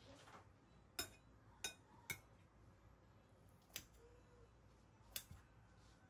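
Kitchen scissors snipping through sausage bread: about five short, sharp snips at uneven intervals.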